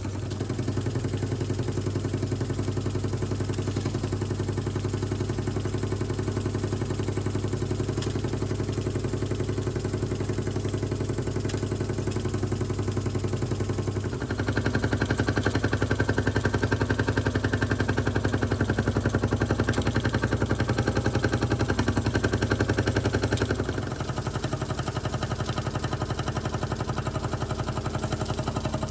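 Antique Ernst Plank live-steam toy engine running fast: a rapid, even clatter of exhaust beats and moving parts. The sound grows louder and fuller about halfway through, then drops back some five seconds before the end.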